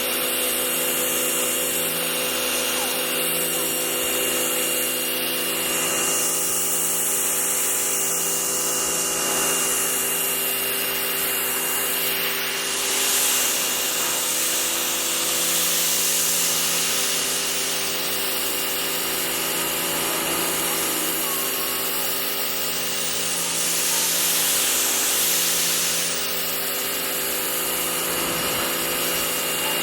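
Harbor Freight Portland electric pressure washer running with a steady motor-and-pump hum, its spray hissing on a car's bodywork; the hiss swells about three times as the wand sweeps.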